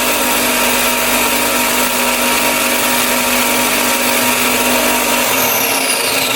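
Bucktool BD4603 direct-drive belt and disc bench sander running while sanding the end of a small piece of metal square. About five seconds in it is switched off, and its whine falls as it winds down.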